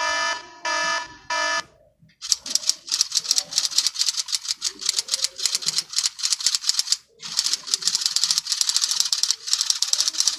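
Three short electronic alarm beeps, then a sound-effect typewriter clattering with rapid keystrokes for several seconds, pausing briefly about seven seconds in.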